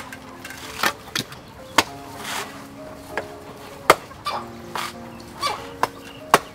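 Soft background music with about ten scattered sharp taps and knocks as hands work potting soil around a small citrus tree in a plastic planter.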